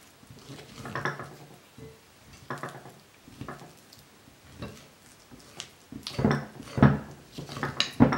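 Metal spoon stirring thick cornstarch-and-water slime in a glass bowl, scraping and knocking against the glass in irregular strokes that grow louder and quicker from about six seconds in.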